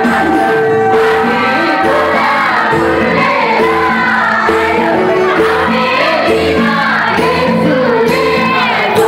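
Loud music with a steady beat and held keyboard-like notes, with many voices singing together over it like a choir.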